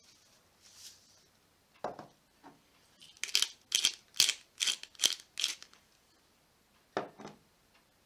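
A pepper mill grinding black pepper in six short bursts, about two a second. There is a soft knock before the grinding and another near the end.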